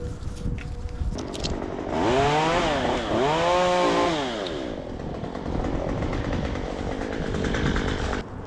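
Two-stroke chainsaw revved up and down twice, its pitch rising and falling, then running at lower speed until it cuts off sharply near the end.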